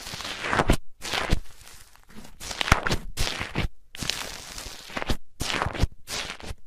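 Foamy slime in a plastic tub being stirred with a metal spoon and pressed by hand. It makes about nine crackly, squishing strokes, with short pauses between them.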